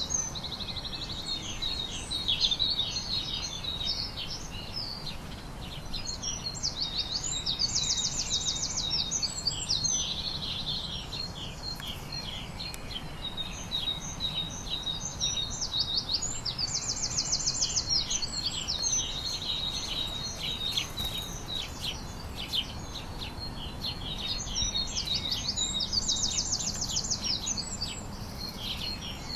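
Several songbirds chirping and calling, with a rapid trill repeated every few seconds, over a steady low background rumble.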